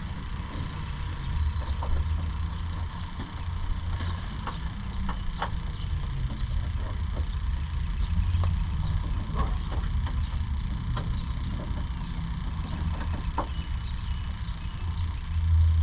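Scattered small clicks and taps of hands working at a truck's plastic headlight housing and its retaining clip, over a steady low rumble.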